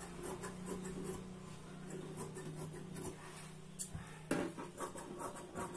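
Large tailoring scissors snipping through blouse fabric on a table, a series of faint short cuts with cloth rustling. About four seconds in, a louder rustle of the fabric being handled and smoothed.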